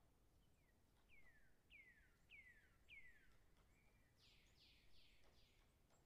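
Distant woodpecker calling, faint: a run of four quick notes that each drop sharply in pitch, then a short level note and a second run of four broader falling notes near the end.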